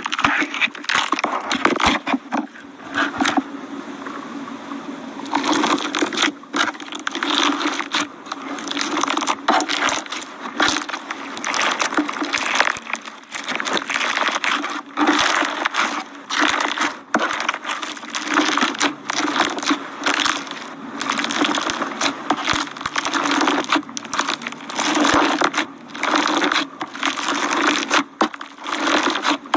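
Slime being squeezed and kneaded by hand, giving a dense run of irregular crunching, crackling and popping, as in crunchy slime ASMR.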